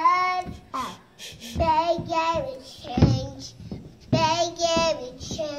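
A toddler girl singing in short, high, held phrases with pauses between them, with a short thump about three seconds in.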